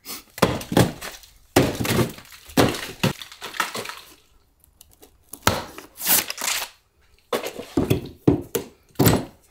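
Claw hammer striking and breaking out old plasterboard beside a window frame: a rapid run of irregular knocks with the crack and crumble of broken board, a short pause about four seconds in, then more blows.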